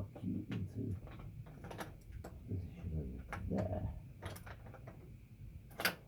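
Scattered clicks and knocks of bicycle parts being handled, with a sharper click near the end, over low murmuring sounds in the first second and again about three and a half seconds in.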